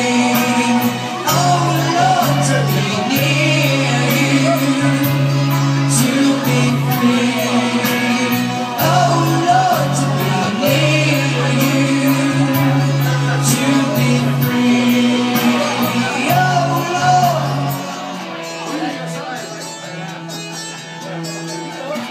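Live pop music: a male singer with backing accompaniment and a steady beat. About eighteen seconds in the bass drops out and the music thins and gets quieter.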